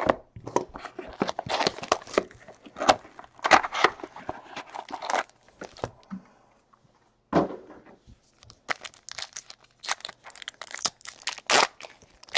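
A Panini Elite Extra Edition baseball card box torn open and its card packs handled and ripped open: a long run of tearing and crinkling, a pause past the middle, then more crinkling near the end as a pack wrapper is torn and the cards pulled out.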